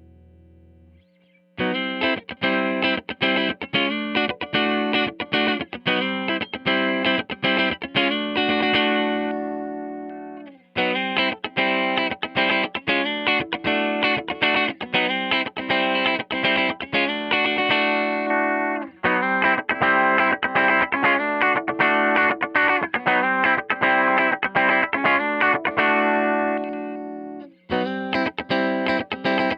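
1994 Hamer Chaparral electric guitar played through a Tone King Imperial MK 2 amp on a slightly hot clean setting. It plays phrases of quick picked notes, with short breaks between phrases.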